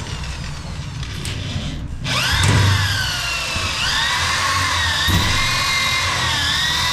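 Power drill boring rivet holes through fibre-cement ceiling board into the steel frame. The motor spins up about two seconds in, then holds a whine whose pitch wavers as it meets load.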